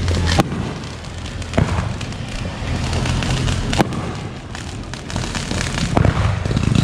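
Aerial firework shells bursting overhead, with a sharp bang about four times over a low rumble. Near the end comes a dense, rapid crackling.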